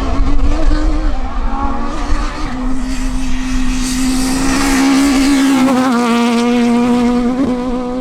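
Peugeot 306 Maxi Kit-Car rally car's naturally aspirated 2.0-litre four-cylinder engine running hard at high revs, its note held nearly level. The pitch steps down about six seconds in at a gearchange, with a short blip of revs a little later.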